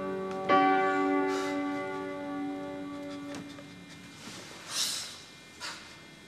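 Piano chords struck and left to ring, dying away slowly as the piece ends. Two short, soft rushes of noise come near the end.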